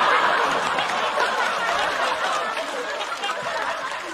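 Studio audience laughing after a punchline, loudest at the start and slowly dying away.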